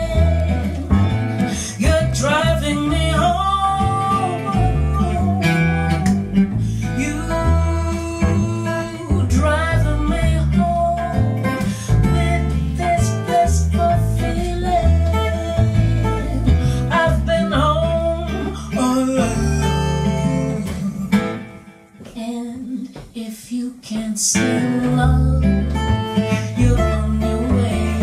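Live acoustic jazz trio: a woman singing with acoustic guitar and upright double bass walking underneath. About three-quarters of the way through the band drops almost out for a couple of seconds, then comes back in full.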